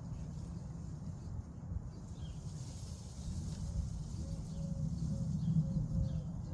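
Birds chirping faintly over a low, steady rumble.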